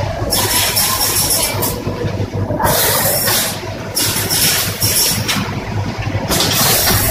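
Automatic premade-pouch packaging machine running: a steady machine hum, with bursts of hiss that come and go about four times, each lasting about a second.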